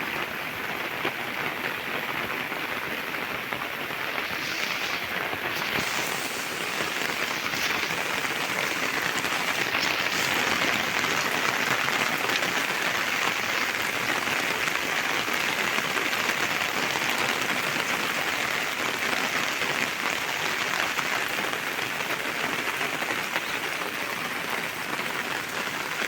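Heavy rain falling, a steady hiss with no letup.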